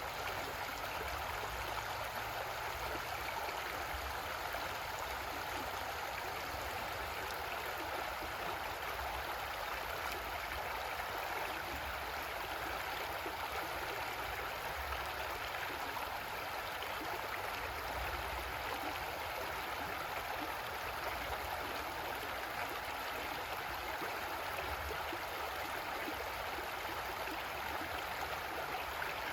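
Creek water flowing and gurgling over rocks, a steady rushing that holds even throughout.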